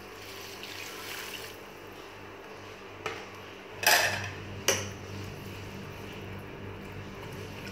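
Water pouring from a bowl into an aluminium cooking pot for the first second and a half, then two loud metal clanks against the pot a little under a second apart as a spoon goes in to stir the chicken, onions and tomatoes.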